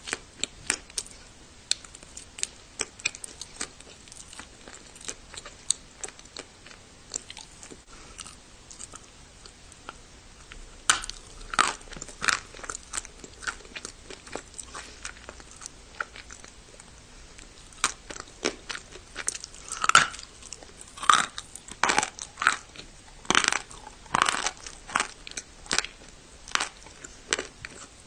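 Close-up biting and chewing of dried clay. First comes a quick run of light crackles, then louder crunching bites at irregular intervals through the second half.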